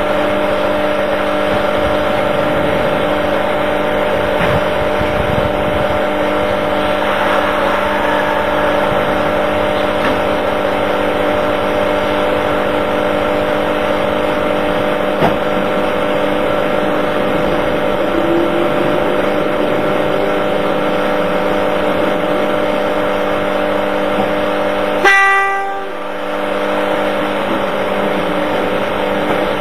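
Steady hum of a Hitachi Electric Railway electric train standing at the platform, a few fixed tones over a constant whirr. About 25 seconds in comes a short horn blast, and the level suddenly drops.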